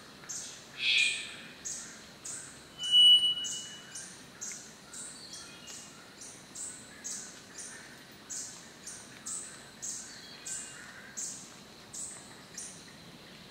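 Male three-wattled bellbird calling: a short burst about a second in, then a loud, thin, high whistle held for about a second, about three seconds in. Under it, high pulses repeat evenly about twice a second.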